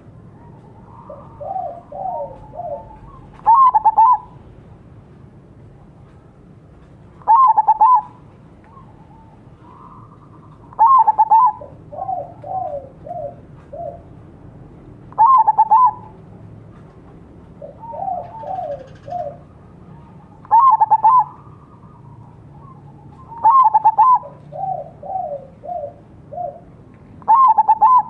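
Crossbred zebra dove (perkutut, Bangkok × local) singing its cooing song: seven loud bursts of quick coos about every four seconds. Softer, lower runs of three or four coos fall between several of them.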